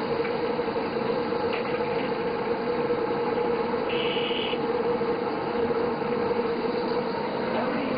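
Fish deep-frying in a large wok of hot oil: a steady sizzle over a constant low hum, with a short high-pitched tone about four seconds in.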